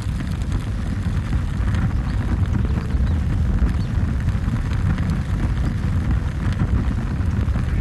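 Bush fire burning through dry grass and reeds: a steady low rumble of flames with dense crackling throughout.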